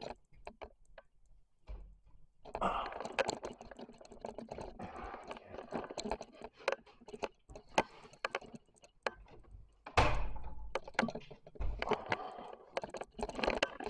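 Crackling, clicking and rustling of debris being handled or walked on, with one heavy thunk about ten seconds in.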